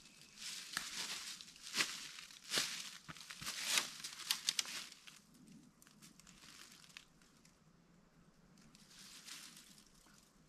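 Dry leaf litter and twigs crackling and crunching under footsteps as a person gets up, walks a few steps and kneels down again. The loudest crunches fall in the first half, with quieter rustling near the end.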